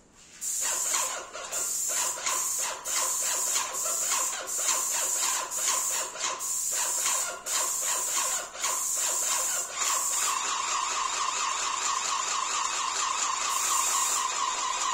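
Paint spray gun hissing as it sprays a second coat of paint onto a ceiling. The spray is triggered in short runs with brief breaks for about the first ten seconds, then held on steadily.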